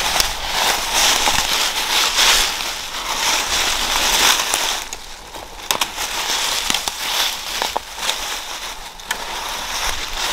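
Footsteps crunching and rustling through dry fallen leaves as people walk over the forest floor, with sharp crackles here and there.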